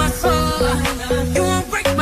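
Background music: an upbeat song with a steady beat.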